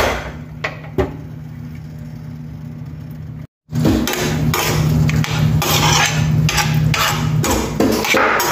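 A metal spatula scrapes and clinks against a ceramic plate as cooked rice is served, with two sharp clinks in the first second over a steady low hum. After a brief cut, a louder stretch of low hum with sharp knocks about two to three times a second.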